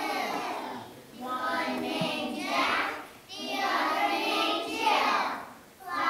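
A group of preschool children singing a song together, in phrases of about two seconds with short breaks between them.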